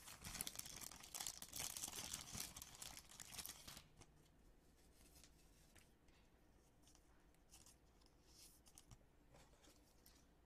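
Crinkling and rustling of thin plastic trading-card packaging being handled during a pack opening, for about four seconds, then only faint occasional clicks of cards being handled.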